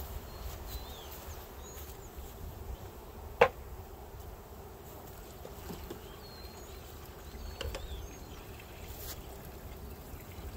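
Swarm of loose honeybees buzzing, a faint steady hum around the open hive just after a package install. A single sharp knock about three and a half seconds in, over a low wind rumble on the microphone.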